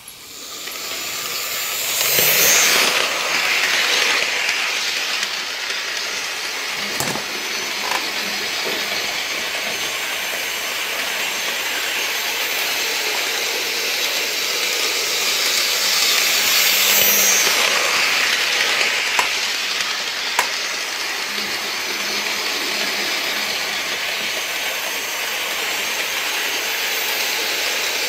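Model steam locomotive running on its track, a steady whirring hiss of motor and wheels that swells twice as it comes near, with a few sharp clicks along the way.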